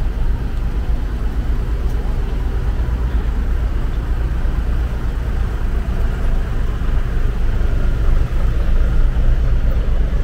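Steady, deep engine rumble on a ro-ro ferry's vehicle deck.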